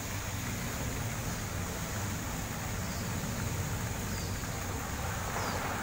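Garden pond fountain jets spraying and splashing back into the water as a steady hiss over a low rumble, with faint short high chirps repeating about once a second.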